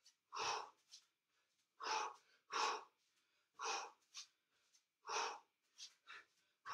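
A man breathing hard from exertion: a run of short, forceful breaths about one to one and a half seconds apart, with fainter breaths in between.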